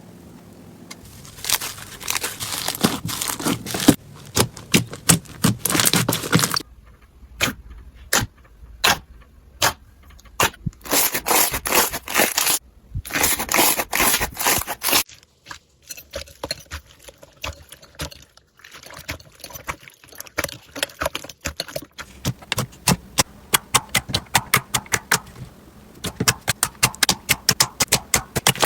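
Slime being pressed and squished by hand, crackling and popping in runs of sharp clicks. There are dense bursts and sparser single pops, with a quieter, softer stretch midway.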